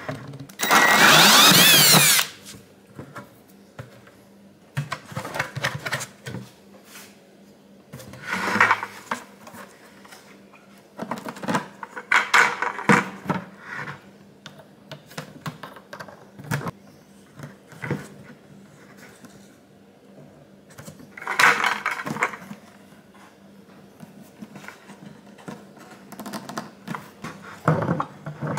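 A cordless drill runs a hole saw through a plastic bucket lid for about two seconds, starting about half a second in, its motor whine rising and falling in pitch. After that come scattered knocks, clicks and short scraping bursts of a plastic bulkhead fitting and pliers being handled on the lid.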